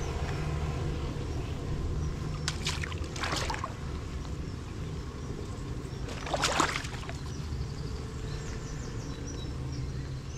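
Water sloshing and splashing around a float tube, with three short louder splashes about two and a half, three and a half and six and a half seconds in, over a steady low rumble.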